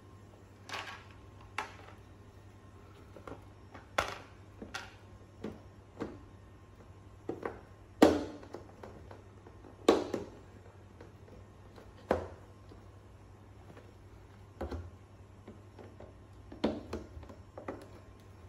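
Plastic wall panels of a modular planter box clicking and knocking as they are pushed into the grooves of the base frame: about a dozen separate sharp clicks and knocks, the loudest about eight seconds in.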